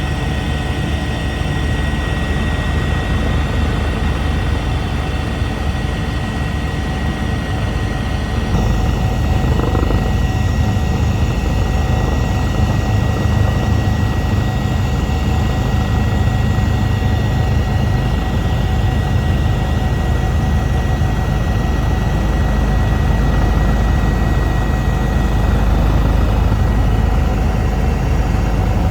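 Eurocopter EC145 helicopter running in flight: a steady low rotor and engine rumble with a thin constant whine on top. About eight seconds in, the rumble turns slightly louder and heavier.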